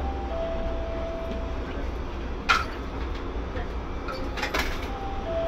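Interior of a stopped streetcar: a steady low electric hum, with an electronic beep twice, a short higher note then a longer lower one. A few sharp clicks come in between.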